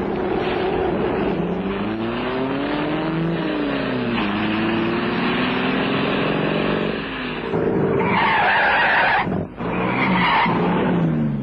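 Car engine accelerating hard, its pitch climbing through gear changes, then tires squealing twice near the end, as a car is driven at a pedestrian.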